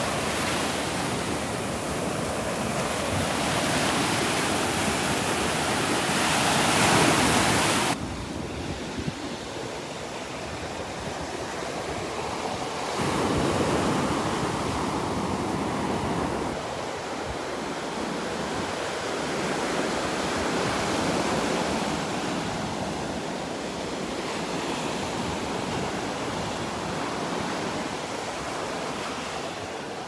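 Gulf of Mexico surf breaking and washing up a sandy beach in a steady rush that swells and eases with the waves. About eight seconds in the sound drops abruptly and turns duller.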